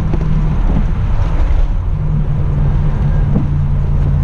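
1987 Buick Grand National's turbocharged 3.8-litre V6 running at steady speed on the road, a constant low engine drone over road and wind rumble.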